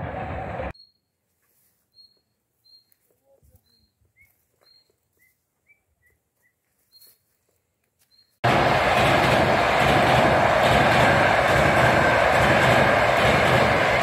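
A few faint, short high chirps in near silence, then about eight seconds in, the loud steady rumble of a passenger train crossing a steel truss railway bridge begins abruptly and carries on.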